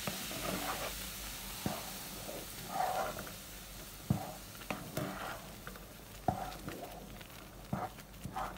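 Wooden spoon stirring polenta in a pot: cornmeal fried in butter, with boiling salted water just added, bubbling and sizzling. Now and then the spoon knocks sharply against the pot.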